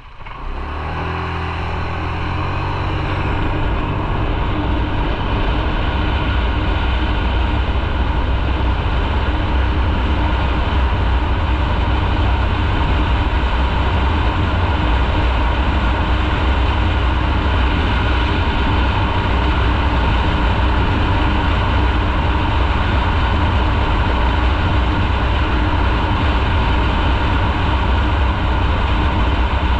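Motorcycle engine pulling away from idle, its pitch climbing over the first few seconds, then running steadily at speed under a loud, even rush of noise.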